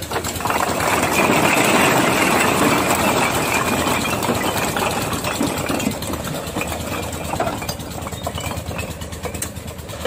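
A load of fired bricks sliding off a tipper's raised bed and clattering onto a pile. The clatter is loudest in the first few seconds and thins out about six seconds in, over a running engine.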